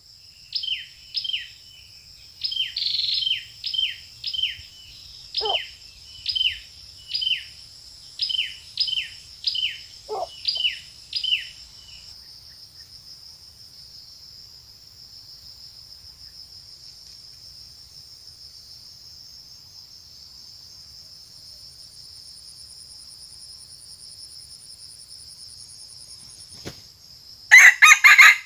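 A steady, high insect drone runs throughout. For the first twelve seconds a bird gives a quick series of short, falling chirps, about two a second. Near the end a red junglefowl rooster crows once, the loudest sound.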